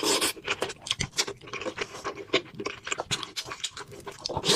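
Close-miked eating sounds: chewing and wet mouth smacks, many irregular short clicks a second.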